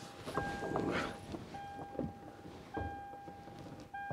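Toyota Tundra dashboard warning chime beeping over and over: a steady single-pitched tone about a second long, a short gap, then the tone again. Soft knocks and rustling from handling in the cab, and a thunk near the end.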